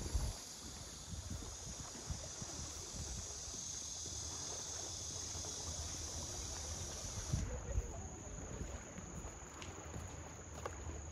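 Insects trilling steadily in a high, even chorus that cuts off abruptly about seven seconds in, leaving a thinner high trill, over an uneven low rumble of wind on the microphone.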